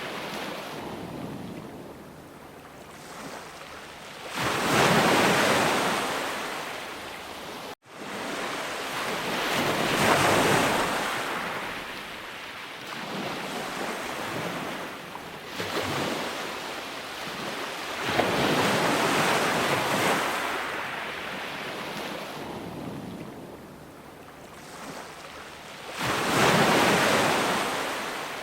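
Sea waves breaking and washing ashore, surging louder every few seconds, around five, ten, sixteen, nineteen and twenty-seven seconds in, and ebbing between. The sound cuts out for an instant about eight seconds in.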